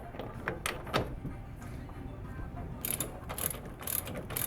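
Socket ratchet clicking as a hub-to-knuckle bolt is turned out, with a couple of sharp metal knocks in the first second, then repeated clicking strokes about twice a second from about three seconds in.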